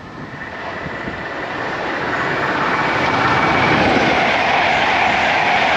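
Class 91 electric locomotive and its InterCity 225 train drawing near: the noise builds over the first three seconds, then holds as a steady rush.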